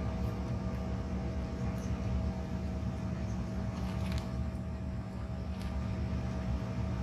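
Steady cabin noise of a Bombardier CRJ1000 regional jet taxiing on the ground: its rear-mounted turbofan engines running with a steady hum, over a low rumble from the rolling airframe, with a few faint rattles about four seconds in.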